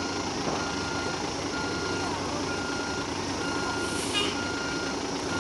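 A heavy vehicle's reversing alarm beeping steadily, one high half-second beep about once a second, over the low running of diesel engines. A short hiss comes about four seconds in.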